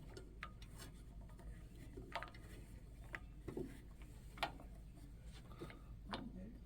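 Light, scattered clicks and a few sharper knocks of hands working parts of a heat press, as its handle is screwed back on; the loudest knock comes about halfway.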